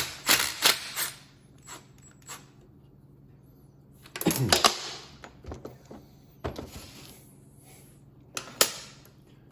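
Metal tools and engine parts clinking and clattering in short bursts while the governor arm is being taken off a Kohler K301 engine. There are four bursts of clatter, the longest about four seconds in, with quiet gaps between them.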